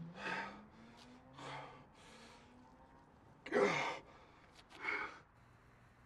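A man breathing hard, about five heavy, uneven breaths, with a loud voiced gasp that falls in pitch about three and a half seconds in.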